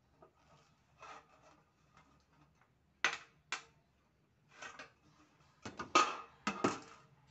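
Light-steel hollow sections knocking together as they are handled: two sharp knocks about three seconds in, then a quick cluster of louder knocks near the end, with softer rubbing between.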